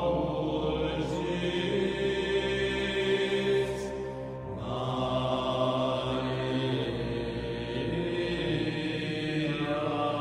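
Slow, droning, chant-like music of sustained held tones, shifting to a new set of tones about four and a half seconds in.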